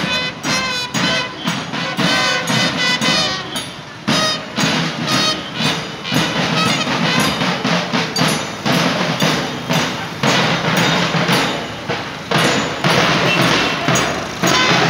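Marching band of bass drums, side drums and cymbals beating a steady march rhythm, with bugles playing a tune over it in the first few seconds and again near the end.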